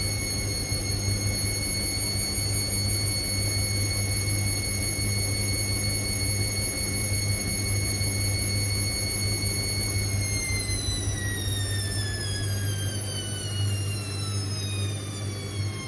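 Indesit IWC6165 washing machine spinning at speed: a steady high motor whine over a low hum, then about ten seconds in the whine starts falling in pitch as the drum slows down.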